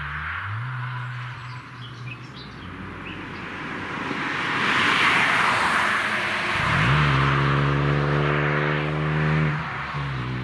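A distant car's engine climbs in pitch at the start. Then a Ford Fiesta ST, a turbocharged three-cylinder hot hatch, comes close through the corner with swelling tyre and wind noise, and accelerates hard out of the bend at a steady high engine note. A brief dip in pitch near the end is an upshift.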